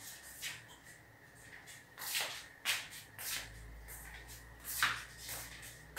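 Curtain rod being wiped down by hand: a handful of short, faint swishing rubs along the rod.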